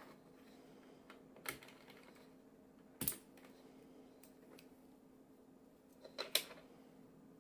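A few separate key presses on a Skylong GK96 mechanical keyboard with linear Gateron Yellow switches: one press, a louder one about three seconds in, then a quick group of two or three near the end. A faint steady hum sits underneath.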